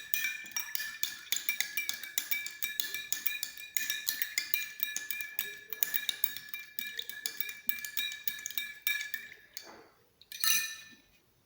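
A spoon stirring briskly in a glass of lemon juice, warm water and ground cloves, clinking rapidly against the glass, which rings with a steady tone. The stirring stops near the end, followed by one louder clink.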